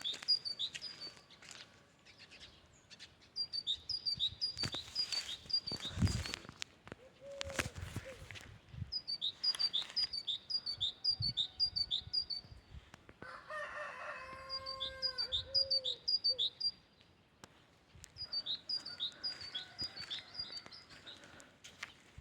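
Great tit singing its repeated two-note 'teacher-teacher' phrase in several bouts of rapid repeats, with short pauses between them. About halfway through, a long, lower, drawn-out call from another bird sounds once.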